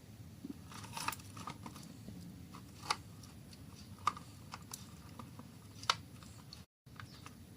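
Scattered light clicks and taps of small parts and tools being handled, over a low steady hum.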